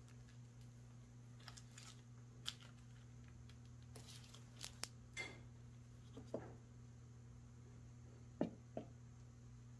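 Quiet handling sounds: the paper cocoa bag rustling as it is emptied and set down, then a spoon knocking in a plastic mixing bowl, heard as a few scattered clicks and knocks, the loudest near the end. A steady low hum runs underneath.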